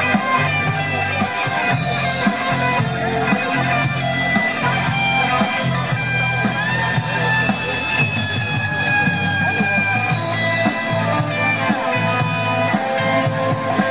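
Rock music led by an electric guitar playing long, sustained lead notes that bend in pitch, over a steady repeating bass backing.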